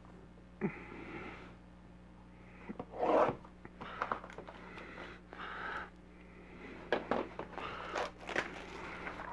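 A knife slitting the plastic shrink wrap on a cardboard trading-card box, then the wrap torn and peeled off in a string of short crinkling, scratchy bursts, the loudest about three seconds in.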